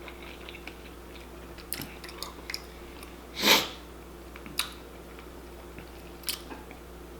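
A person chewing food close to the microphone, with scattered short mouth clicks and one louder bite about three and a half seconds in, over a faint steady hum.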